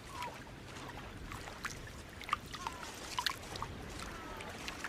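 Shallow seawater sloshing and trickling among rocks, with irregular small splashes and sharp clicks as raccoons paw through the tide pools; a few faint short chirps now and then.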